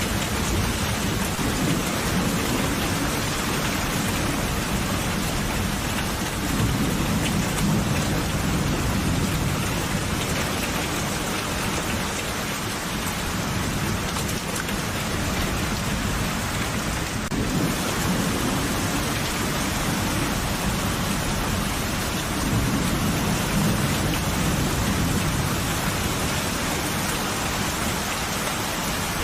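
Steady rain falling, with low rolling thunder rumbling up twice: once about a quarter of the way in and again past the three-quarter mark.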